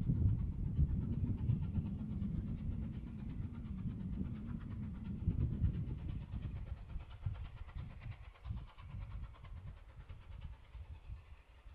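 Steam-hauled train running by, a heavy low rumble that fades away from about halfway through.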